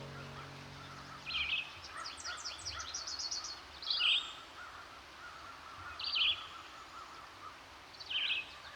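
Wild birds calling: a short two-part chirping call repeated about every two seconds, with a quick run of higher, faster chirps a couple of seconds in, over a faint steady hiss.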